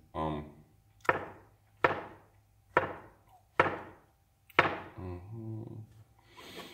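Kitchen knife slicing button mushrooms on a plastic cutting board: five sharp chops, a little under a second apart.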